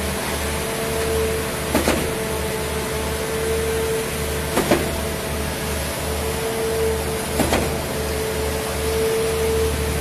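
Diesel concrete pump running under load: a steady engine drone and rumble, with a sharp double knock about every three seconds as the pump changes stroke and its valve swings over.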